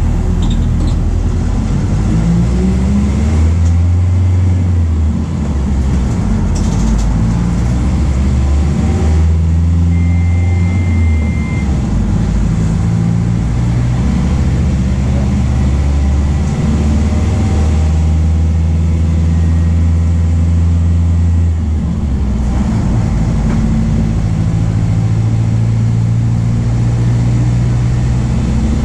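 The MAN D0834 four-cylinder turbodiesel of a VW 17.230 OD bus running under way, its pitch rising and falling several times with engine speed. A short high steady beep sounds about ten seconds in.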